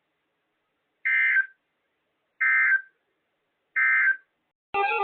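Emergency Alert System SAME end-of-message code: three short, identical bursts of digital warbling data tones about a second and a half apart, signalling the end of the alert. Music starts just before the end.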